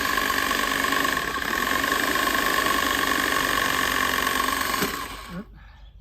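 Engine running steadily with a high whine over it, cutting off abruptly about five seconds in.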